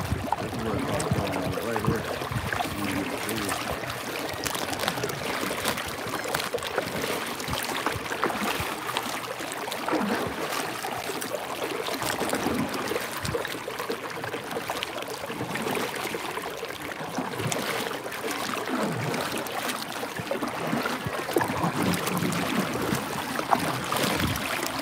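Sit-on-top kayak being paddled: water splashing and trickling off the paddle and lapping against the plastic hull in a steady wash.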